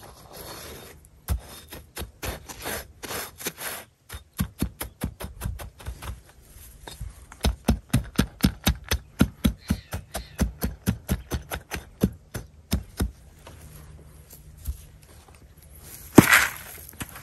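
A brick being worked and tapped down into a bed of crushed gravel, a quick run of gritty knocks and scrapes at about four a second. There is one sharp knock near the end.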